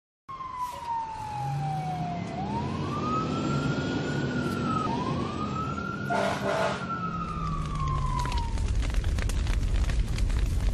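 Fire engine siren sound effect: a wailing tone that sweeps slowly down, up, and down again. A rough rumble runs beneath it and grows louder over the last few seconds.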